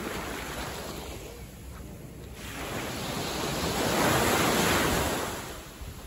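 Small waves breaking and washing up a sandy beach, one wash swelling to its loudest about four seconds in and then fading.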